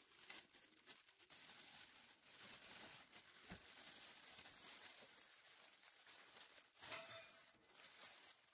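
Faint rustling and crinkling of a plastic oven-roasting bag being handled as marinated meat and vegetable chunks are tipped in and the bag's neck is gathered shut.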